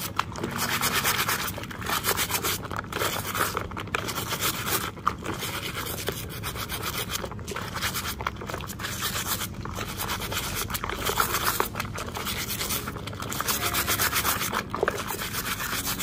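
A brush scrubbing a toy vehicle with soapy water, in quick repeated rubbing strokes.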